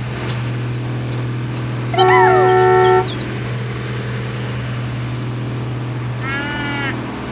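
Steady low engine drone, with a loud horn blast lasting about a second two seconds in and a short wavering call near the end.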